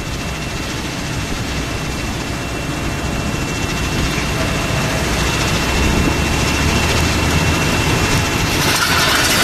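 Steady heavy-equipment noise of asphalt millings being unloaded from a bottom-dump truck into a Superior 48-inch Razertail truck unloader: engine and conveyor running, with a thin steady high whine that fades near the end.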